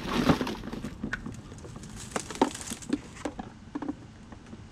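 Handling noise: a rustle at the start, then a scattered run of light clicks and knocks, thinning out near the end, as the camera is set down on the ground and hard plastic gear beside it is handled.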